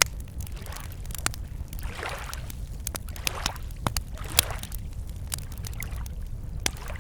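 Water sloshing and splashing in swells about once a second, over a steady low wind-like rumble, with scattered sharp clicks.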